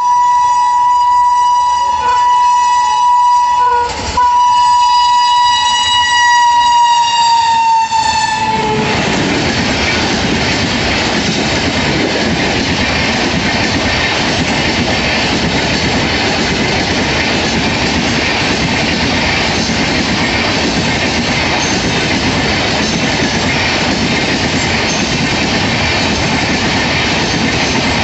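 WAP-7 electric locomotive's horn sounding one long blast for about eight seconds, broken briefly twice, then dropping in pitch as the locomotive passes. The Rajdhani Express coaches then rush past with a steady rumble and wheel clatter.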